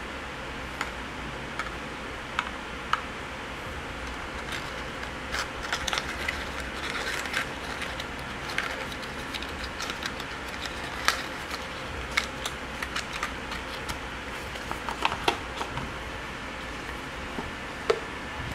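Hands handling packaging: irregular light clicks and rustles of paper, a cardboard box and earphone cable, thickest in the middle and again near the end, over a steady background hiss.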